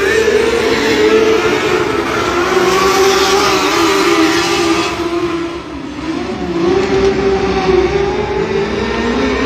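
Mod-lite race car engines running on a dirt oval, their pitch rising and falling as the cars speed up and slow through the turns. The sound dips briefly about six seconds in, then picks up again.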